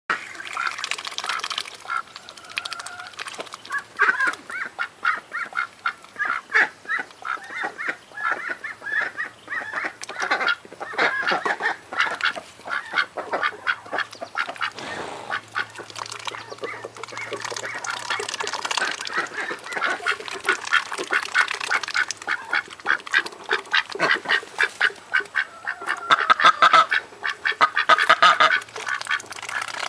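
Several ducks quacking and chattering continuously in rapid, overlapping calls, getting louder near the end.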